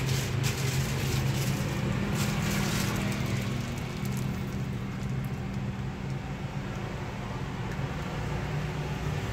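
Steady low rumble and hum of road traffic, with a few light clicks and taps in the first three seconds.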